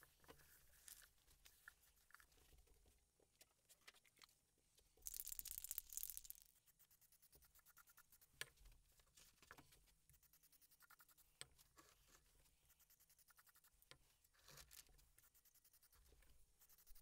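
Aerosol can of black barbecue paint spraying once, a hiss of a little over a second about five seconds in. Around it there are only faint rubbing and light knocks as the metal housing is wiped and handled.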